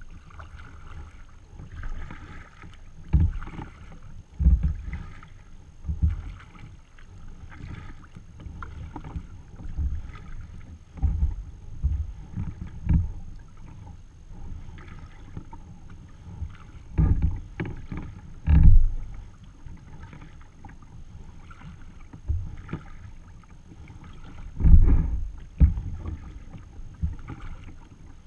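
Sea kayak being paddled across calm water: a steady run of paddle strokes swishing and splashing about once a second, with a few louder low thumps.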